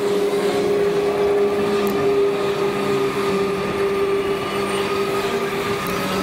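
Cyrusher Ranger fat-tyre e-bike riding along a tarmac road: a steady drone from its fat tyres and motor, with a thin whine above it that climbs slightly near the end.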